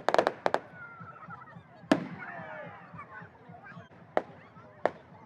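Bonfire crackling, with sharp wood pops: a quick cluster of them at the start and a loud single pop about two seconds in, then scattered pops. Faint wavering whistles are heard between the pops.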